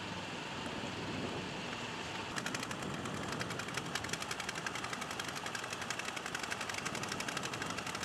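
Boat engine running steadily. About two seconds in, a fast, even rattling starts on top of it and keeps going.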